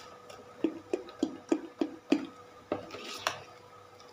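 Metal spoon stirring thick dhokla batter in a metal bowl, scraping and knocking against the bowl about three times a second, easing off near the end.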